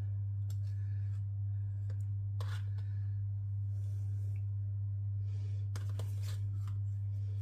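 Baking margarine being scraped off a knife into a stainless-steel Thermomix bowl: scattered light scrapes and soft knocks, with a cluster of them around six seconds in as a lump drops in. Under them runs a steady low electrical hum.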